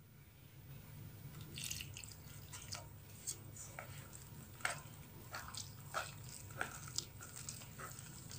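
Thick batter of flour and coconut milk being stirred in a bowl: faint, irregular wet clicks and squelches, about two a second, starting a second or two in, over a low steady hum. The batter is being worked until no lumps remain.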